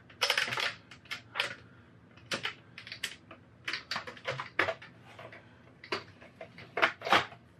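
Irregular clicks, knocks and light rattles of plastic and metal as an original Xbox's disc drive and its ribbon cable are handled and pressed down into the open console case.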